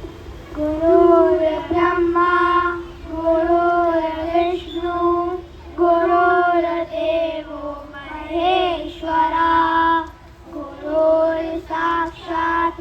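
Children singing a slow tribute song in long held notes, with short breaths between phrases.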